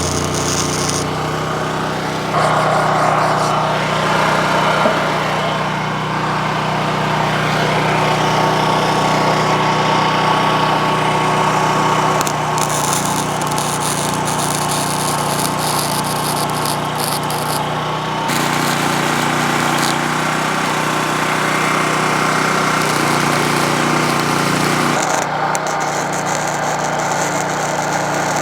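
Flux-core arc welding with a Lincoln Electric 90i FC welder, a loud continuous hiss that changes as the welding runs shift, over the steady drone of the Predator gas generator powering it.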